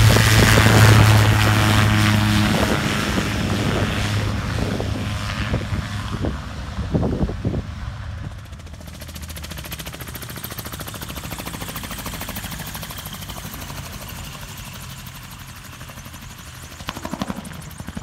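Autogyro's engine and pusher propeller running with a loud, steady low hum as it passes close. After a few seconds it fades to quieter, more distant engine noise.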